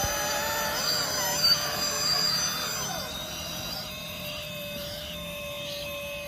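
Electric motors of radio-controlled off-road trucks whining, several high-pitched tones rising and falling with the throttle for the first three seconds, then settling into a quieter steady whine. A brief sharp knock about a second and a half in.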